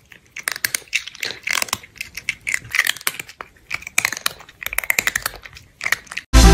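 A cat chattering: quick clusters of short clicky bursts, broken by brief gaps.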